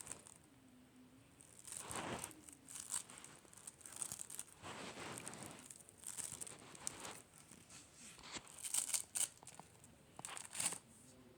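Slime being squished and pulled apart by hand, making crackly pops and tearing sounds in irregular bursts. The loudest bursts come about two seconds in and again near nine and ten and a half seconds.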